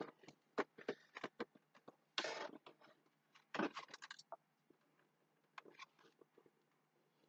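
Handling noise from a plastic Ecto-1 popcorn bucket as its lid is worked open: scattered sharp plastic clicks and taps, with two short rustling scrapes about two and three and a half seconds in.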